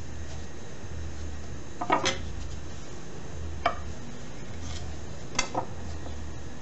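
A steel chef's knife knocking on a granite countertop as it is picked up, cut through dough down to the stone, and set back down: a few sharp clacks, the last a quick double.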